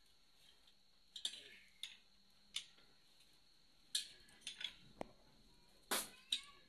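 Scattered sharp metallic clicks and clinks of hand tools against engine parts, about ten at uneven intervals, closest together near the middle and end.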